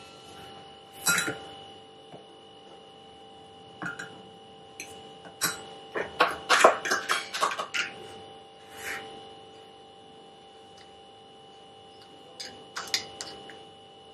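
Kitchen utensils tapping and clinking against a glass bowl and a stone countertop as all-purpose flour is sieved into the bowl, with a quick run of taps a little past the middle. A faint steady hum sits underneath.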